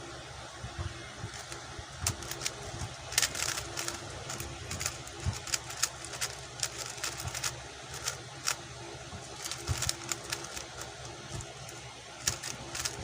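QiYi X-Man Tornado V2 3x3 speedcube being turned fast in a timed solve: quick runs of clicks and clatter from the layers snapping round, with short pauses between runs. A steady low hum lies underneath.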